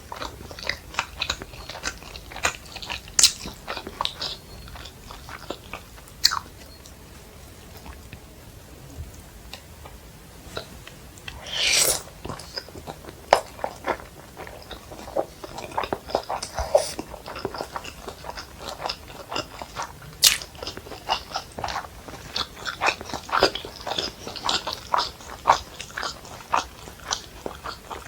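Close-miked eating of fried rice and Manchurian: a run of wet chewing and biting clicks with some crunching, easing off for a few seconds about a third of the way in. Just before halfway comes one longer rushing sound lasting under a second.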